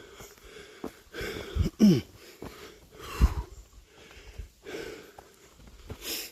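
A man breathing hard while walking uphill, loud breaths in and out about every one and a half seconds, one with a short voiced groan, with low thumps underneath.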